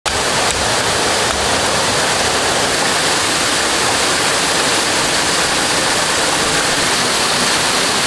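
Steady rush of falling water: a dense, even hiss with no breaks.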